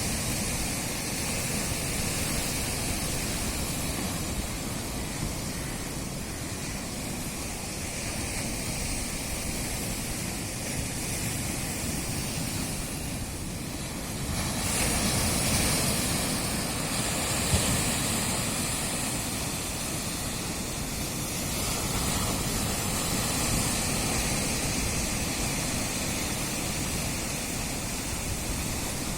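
Sea waves breaking and washing in as a steady rush, swelling louder about halfway through and again later.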